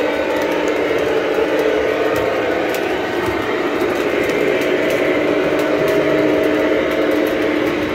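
Lionel O-gauge model train running on three-rail metal track: a steady rumble and hum of the locomotive's motors and the cars' wheels rolling on the rails.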